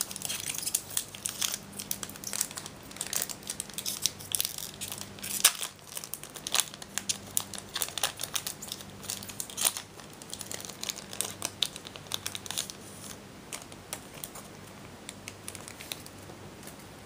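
Foil trading-card booster pack being torn open and crinkled by hand: a long run of sharp crackles and rustles that thins out over the last few seconds.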